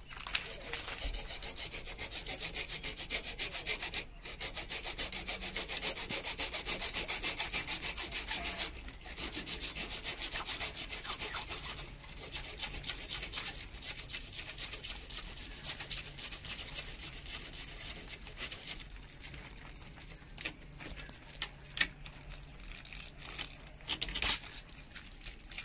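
Hand-held hacksaw blade sawing through a PVC water pipe with quick back-and-forth strokes, in runs broken by short pauses about 4, 9 and 12 seconds in. The pipe is being cut open to fit a 1-inch tee.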